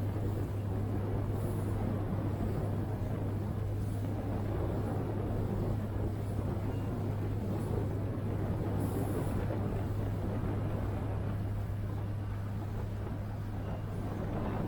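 Yamaha SRX motorboat's engine running steadily under way, a constant low drone over an even rushing noise.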